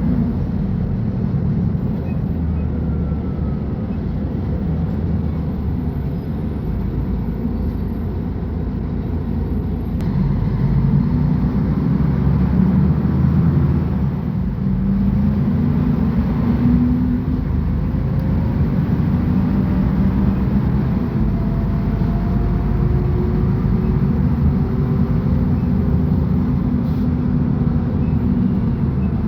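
Mercedes-Benz O500UA articulated bus's diesel engine running, getting louder about ten seconds in, with faint rising whines in the second half as it works harder.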